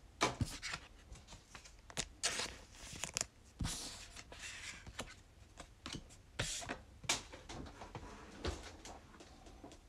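Trading cards and their packaging being handled: scattered light clicks and taps with a few short rustling swishes of cards and wrapper.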